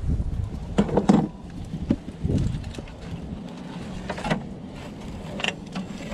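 Metal clinks and knocks of hands working a cable off a lead-acid battery terminal in an RV battery bay, a handful of them with the loudest about a second in, over a steady low rumble.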